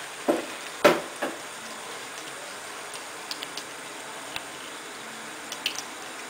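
Thin stream of tap water trickling steadily into a stainless steel sink as a cat drinks from it. Three short knocks in the first second and a half, then a few faint clicks.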